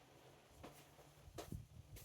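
Near silence: a faint low hum with two soft clicks.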